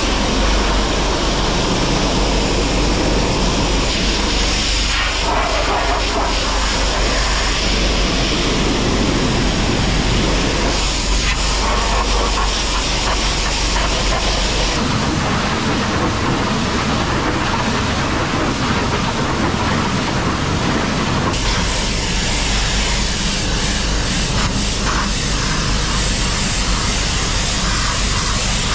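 Pressure washer spraying water onto a manure spreader to clean it: a loud, steady hiss of spray over a low motor hum. The hum drops out for a few seconds midway.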